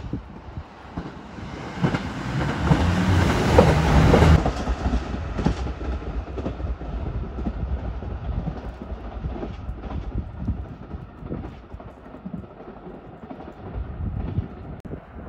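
KiHa 85 series diesel multiple unit passing close by. Its engines grow loud for a few seconds and drop away sharply about four seconds in. The wheels then keep clacking over the rail joints, fading as the train runs off into the distance.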